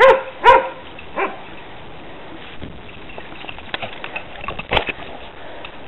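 Young yellow Labrador mix barking: two loud barks about half a second apart, then a softer third about a second in. A sharp knock comes near the end.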